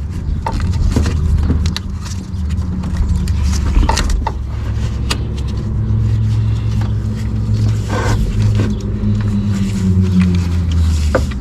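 Scattered sharp clicks and clinks of hand tools and metal parts over a steady low hum.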